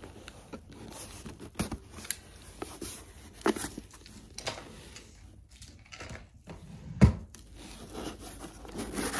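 Cardboard shipping box being opened: packing tape slit and torn, and the cardboard flaps scraped and rustled in short strokes, with one heavy thump about seven seconds in.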